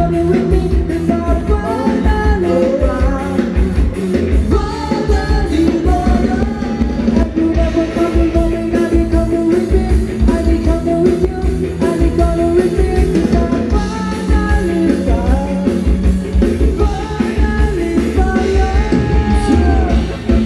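Live Thai band music: a singer over a steady drum beat, played loud through the stage sound system.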